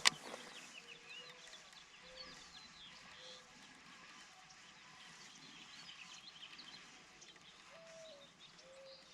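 Birds chirping and twittering, with a low short note repeating about once a second underneath. There is one sharp click right at the start.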